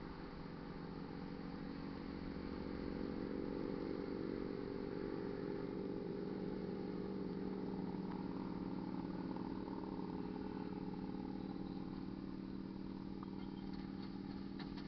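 An engine running steadily, a low hum of several held tones that swells over the first few seconds and then holds level, with a few light clicks near the end.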